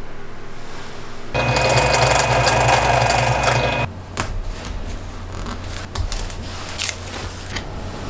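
A small electric power tool runs at a steady whine for about two and a half seconds and cuts off abruptly, followed by light clicks and taps as a protractor and wooden parts are handled on a plywood jig.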